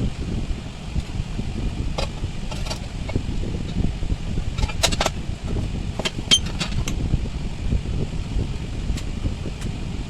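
Steady low rumble of air noise, with a few light clicks and taps scattered through the middle.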